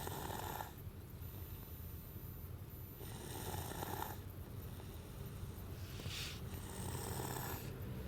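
A two-year-old child snoring in her sleep: three slow snoring breaths about three seconds apart, over a steady low rumble inside the car.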